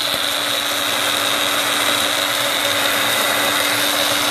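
Small baby-food blender's motor running at a steady speed, grinding charred bones into black powder, with an even whir and a constant high whine.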